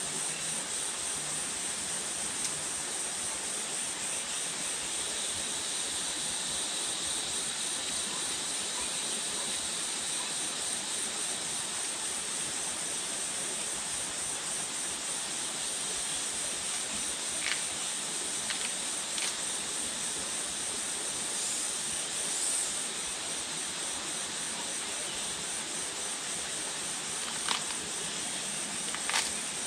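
Steady forest ambience: a high, even insect drone over a constant hiss, with a handful of short sharp clicks in the second half.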